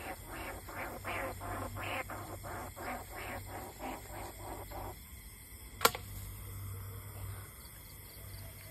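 Rhythmic rasping rat-luring calls, about three or four a second, that stop about five seconds in. A single sharp click follows shortly after.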